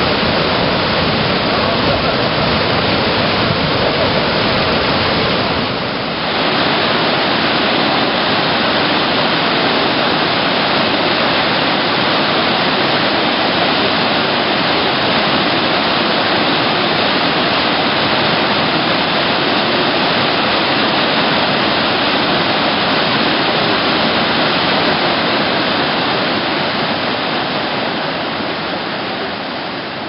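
Small stepped waterfall, water pouring over several rock ledges, with a loud, even rushing sound. It dips briefly about six seconds in and fades out over the last few seconds.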